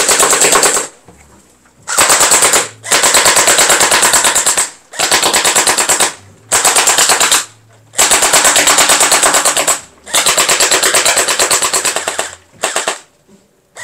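Tiangong ARP9 v2 electric gel blaster firing on full auto in about eight bursts of half a second to two seconds each. Its Gen8 nylon-gear gearbox cycles at about nine rounds a second, giving a rapid, even chatter.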